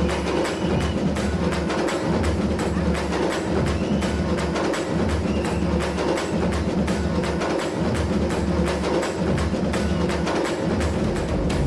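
Fast, steady percussion music: a sharp woodblock-like click about four times a second over a low drum beat.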